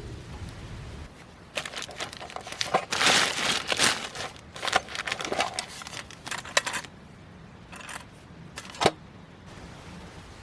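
Crinkling and rustling of material being handled, in irregular bursts, followed by a single sharp click near the end.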